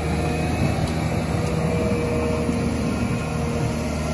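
Caterpillar 930K wheel loader's diesel engine running steadily as the loader pushes snow with its bucket.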